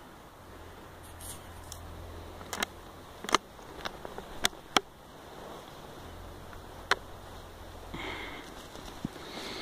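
A .410 bolt-action shotgun being loaded by hand: a shell is pushed into the action and the bolt is worked, giving about six sharp metallic clicks spread over a few seconds, over low handling noise.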